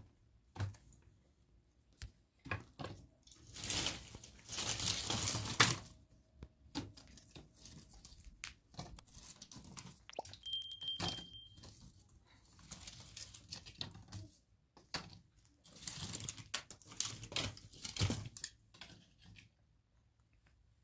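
Dry twigs and brushwood being handled, snapped and laid into an ash-filled fire pit: irregular crackles and snaps, with two longer loud rustling spells, about four seconds in and again near the end. A short two-note chime sounds about halfway through.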